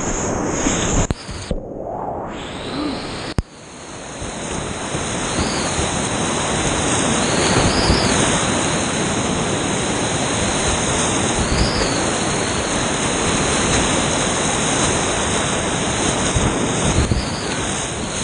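Whitewater rapids rushing loudly around a kayak in the middle of the rapid. The noise drops out and goes muffled for moments near the start, and there is one sharp knock about three seconds in.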